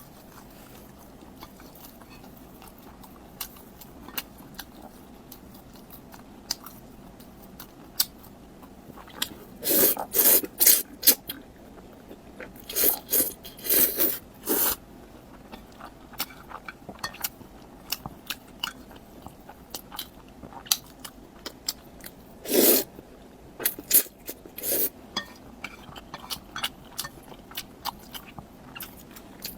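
Close-miked eating: faint mouth clicks at first, then loud bursts of crunchy chewing begin about nine seconds in, with scattered crunches after.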